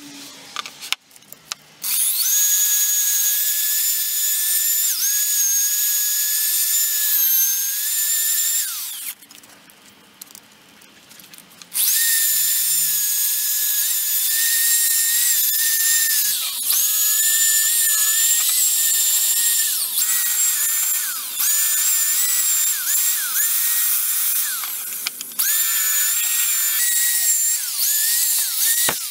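Corded electric drill spinning a cheap wire cup brush against the rusty parts of an old bench vise, scrubbing them clean after a vinegar soak. It runs for about seven seconds, stops for a few, then runs again, its whine dipping briefly several times.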